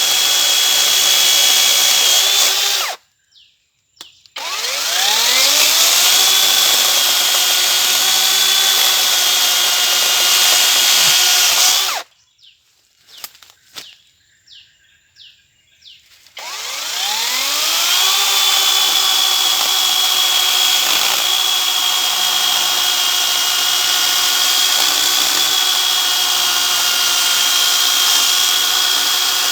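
Cordless brushless 40-volt electric chainsaw running with a steady high whine. The motor stops twice, about 3 and 12 seconds in, with a few faint clicks in the pauses, and each time spins back up with a rising whine.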